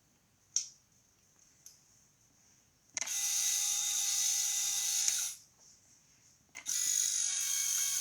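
Small electric motor and gear train of an off-road RC car running in two bursts of about two seconds each, a steady high-pitched whine. A sharp click about half a second in.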